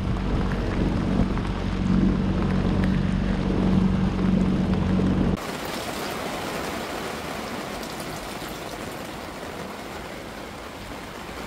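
A small outboard motor running steadily, pushing the boat along with water rushing at the hull. About five seconds in it cuts off suddenly to a quieter, steady hiss of rain on the boat's canvas tent.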